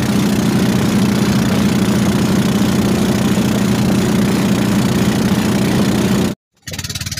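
Outboard motor of a small boat running steadily at speed, a loud even engine hum with a steady hiss over it. Near the end it cuts off abruptly, and after a brief gap a quieter engine sound begins.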